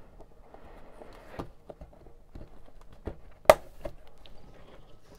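A metal medallion being handled and pressed into a plastic binder slot: light taps, rustles and small clicks, with one sharp click about three and a half seconds in.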